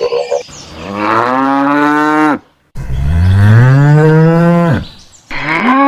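Cows mooing: three long moos in a row, each rising in pitch and then held, the middle one deepest and loudest.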